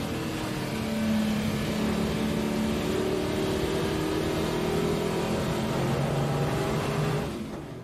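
Holden Torana SL/R 5000 race car's V8 engine heard from inside the cabin, running under load on track with gentle rises and falls in pitch. The sound fades out near the end.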